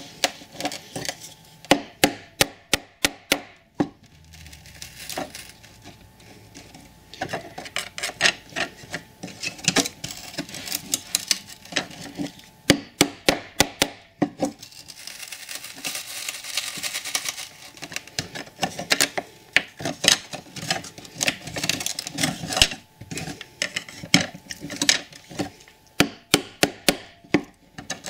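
A thin metal blade being forced and worked under the glued edge of a model railway platform to pry it loose: runs of sharp taps and clicks, some in quick runs of about five a second, between stretches of scraping and rubbing against wood.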